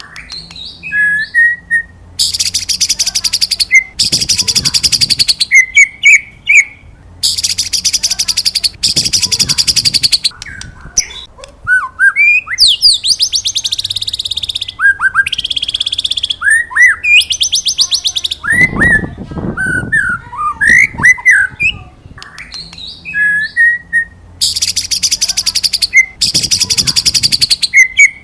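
White-rumped shama (murai batu) singing. Short whistled notes alternate with long, high, buzzing trills of about a second and a half each, repeated some nine times.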